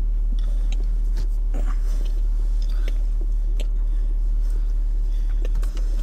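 Someone biting and chewing food, a scatter of short, irregular clicks, over the steady low hum of the car.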